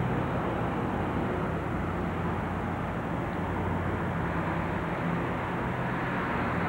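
Steady engine hum and road noise of a moving car, heard from inside the car.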